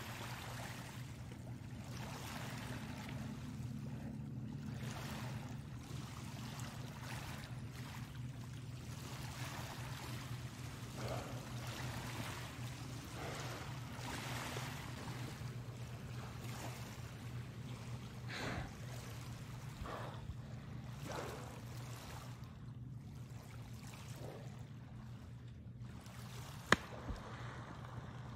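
Small waves washing and lapping on a pebble shore, with a steady low hum underneath. One sharp click near the end.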